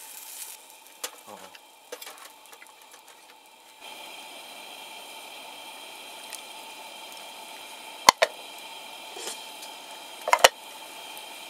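A pot simmering on a camp stove: a steady hiss that starts a few seconds in, with two sharp clinks near the end.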